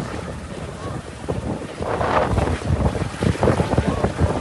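Strong wind gusting and buffeting the microphone in a storm, swelling louder about two seconds in.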